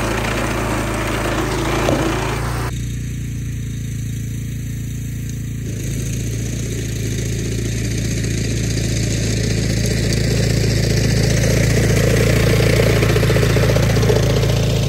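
BCS walk-behind two-wheel tractor's engine running steadily under load while driving a sickle bar mower through tall weeds. It grows louder over the last several seconds as the machine comes closer.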